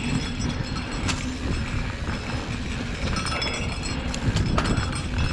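Mountain bike riding down a loose, powdery dirt trail: a steady rumble of tyres on dust with wind buffeting the helmet-mounted camera, broken by sharp rattles and clacks of the bike over bumps, about a second in and again a little after four seconds.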